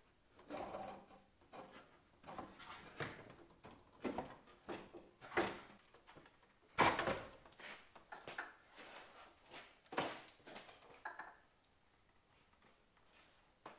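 Irregular clunks, scrapes and rattles of a car's sheet-metal front clip and bumper being wrestled loose and pulled off the body, with the loudest bangs about seven and ten seconds in.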